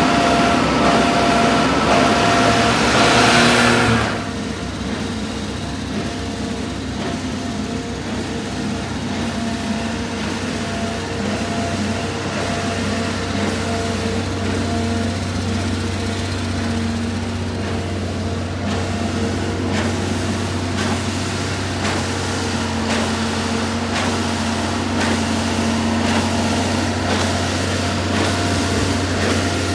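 1997 Suzuki Carry kei truck's small three-cylinder engine, running louder as the truck drives up for about the first four seconds, then idling steadily.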